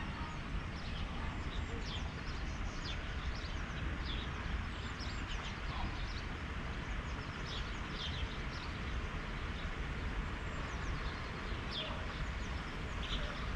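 Small birds chirping and tweeting with many short calls scattered through, over a steady low outdoor rumble.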